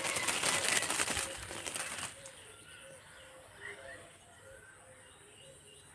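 About two seconds of loud crackling rustle, then a low background with a few faint bird chirps.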